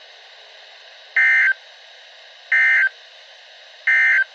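Emergency Alert System end-of-message signal: three short digital SAME data bursts, about 1.3 s apart, marking the close of a weather radio warning. A steady hiss of radio static runs under them.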